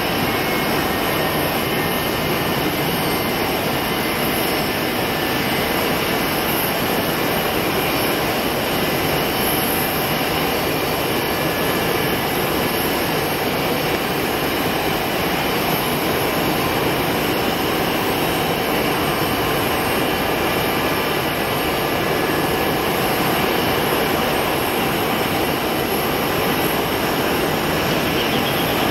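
Boeing C-17 Globemaster III on final approach, its four Pratt & Whitney F117 turbofan engines giving a steady, unbroken jet noise.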